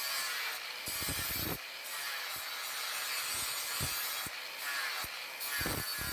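Steel blade being worked by hand: a steady scraping, rubbing noise with several dull knocks scattered through it.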